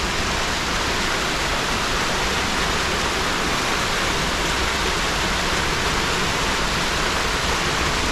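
Steady, even rush of cascading river water.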